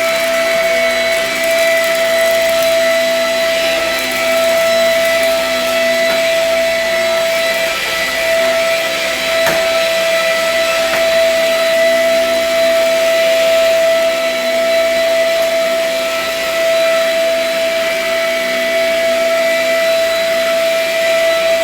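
Vacuum cleaner running steadily, its motor giving a loud, even whine.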